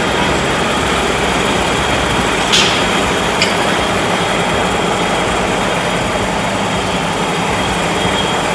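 Steady mechanical noise of factory machinery running, with a faint steady hum and whine in it. A sharp click comes about two and a half seconds in and a lighter one a second later.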